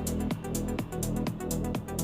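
Electronic dance music with a steady beat, about two beats a second, and a steady bass line.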